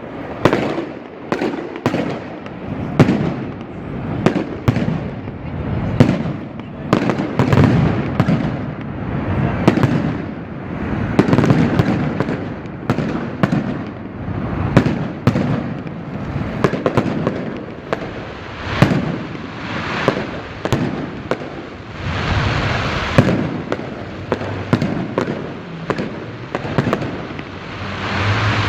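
Fireworks display: a rapid, irregular run of bangs and crackles, several a second at times, over a continuous rumble of bursting shells.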